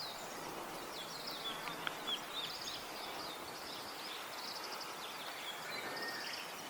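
Faint wild birdsong: short high chirps, then rapid high trilled phrases repeated several times.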